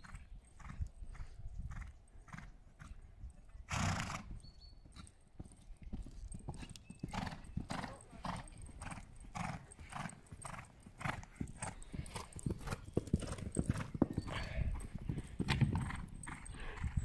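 Horse cantering on a sand arena surface: steady, rhythmic hoofbeats, with one louder burst about four seconds in.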